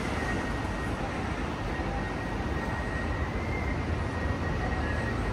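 Steady city traffic din: a continuous low rumble with a faint, thin high tone that wavers above it.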